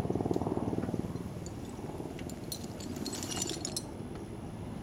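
Engine running with a fast, even pulse as a vehicle strains to tow a stuck ATV out of the mud, louder in the first second and then easing off. A scatter of small clicks and crackles comes near the middle.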